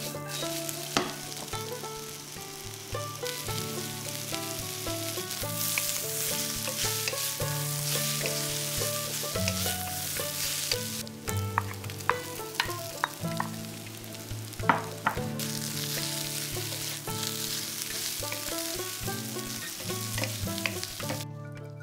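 Noodles and vegetables sizzling as they are stir-fried in a wok, with a steady hiss and scattered sharp knocks and scrapes of the wooden spatula against the metal. Background music plays underneath.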